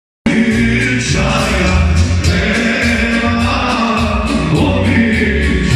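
A man singing live into a handheld microphone over loud amplified music with a heavy bass and a steady beat; the sound cuts in just after the start.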